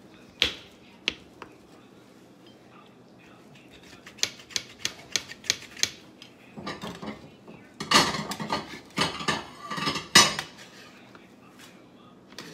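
A metal sheet pan and utensils clattering on a kitchen counter. A quick run of sharp clicks, about three a second, comes near the middle, then louder scraping and clanks as the pan is handled, the loudest near the end.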